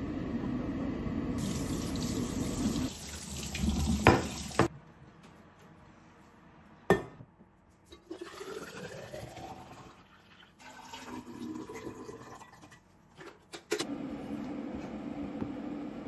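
An air fryer's fan running steadily for the first few seconds, then a couple of sharp knocks. Barley tea is poured through a mesh strainer into a stainless steel tumbler, its pitch rising as the tumbler fills, followed by a few clinks.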